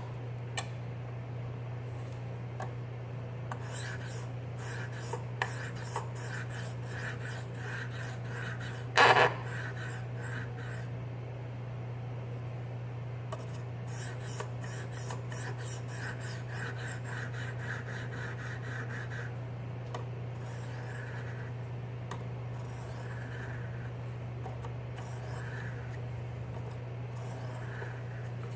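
Diamond sharpening stone on a KME guided sharpener rasping along a knife edge in runs of quick back-and-forth strokes, then in single strokes a couple of seconds apart. There is one sharp clack about nine seconds in.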